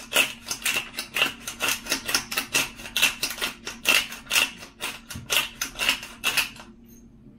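Hand-twisted spice grinder grinding salt and pepper: a quick, even run of crunching clicks, several a second, that stops about six and a half seconds in.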